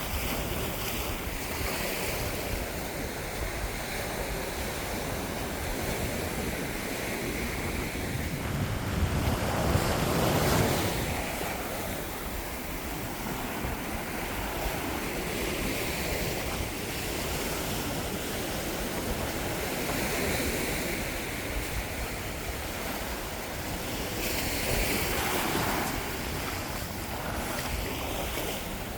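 Caribbean ocean surf washing onto the beach, a steady wash with a larger wave breaking about ten seconds in and another near the end, with wind buffeting the microphone.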